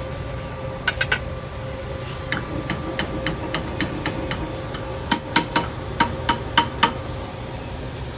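Metal-on-metal tapping and clinking: a string of sharp knocks, each with a short ring, the heaviest coming evenly at about three a second over a couple of seconds near the end, over a steady shop hum.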